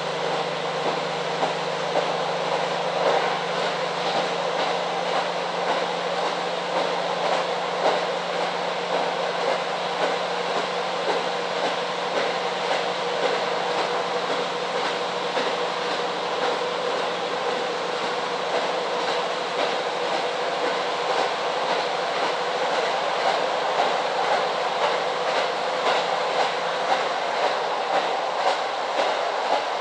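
Inside a KiHa 40 diesel railcar running at speed: the diesel engine's steady hum under the rumble of the wheels on the rails, with a rhythmic clickety-clack from the rail joints. The engine hum drops away near the end while the wheel clicks carry on.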